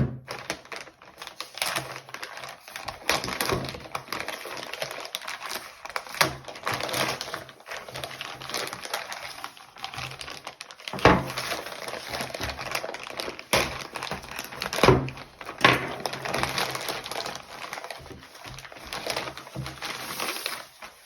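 Shipping packaging being opened by hand: continuous crinkling and rustling, broken by many small clicks and a few louder cracks around the middle.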